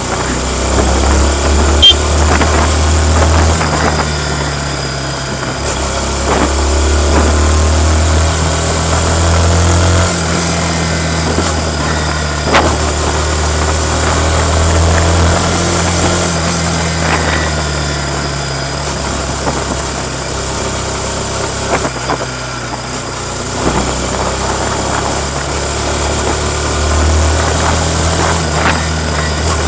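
Yamaha MT-15's 155 cc single-cylinder four-stroke engine running through its stock exhaust while being ridden. The engine note rises and falls as the throttle opens and closes.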